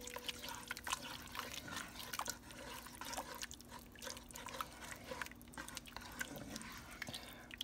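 Silicone spoon stirring flour into chicken drippings and vegetables in an enamelled Dutch oven: an irregular run of soft wet squelches and small scrapes as the flour is worked into the fat for gravy.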